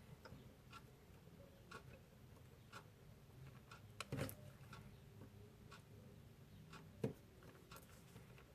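Faint, scattered small clicks and taps of a tiny screwdriver and screws against a smartwatch's case as the screws are fitted. There are a couple of louder clicks about four seconds in and about seven seconds in.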